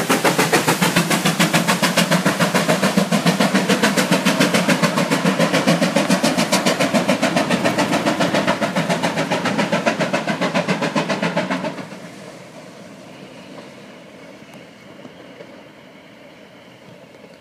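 Train pulling away from the bridge, the GWR Hall class steam locomotive Pitchford Hall working with rapid, even exhaust beats that fade slowly as it recedes. The beats stop suddenly about twelve seconds in, leaving only a faint steady rumble.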